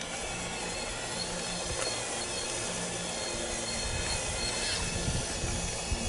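Full-size excavator's diesel engine running steadily under load, with hydraulic hiss and whine over it and a sharp knock near the end.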